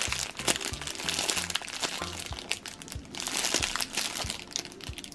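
Clear plastic packaging bag crinkling and crackling in irregular bursts as a foam squishy sealed inside it is handled.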